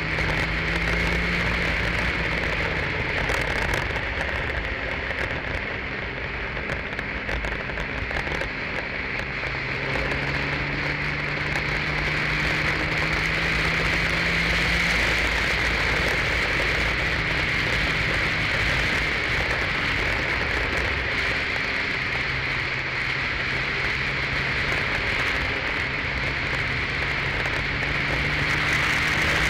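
Onboard sound of an open-wheel single-seater race car lapping a circuit. The engine note rises and falls with the revs under loud, steady wind noise on the car-mounted microphone.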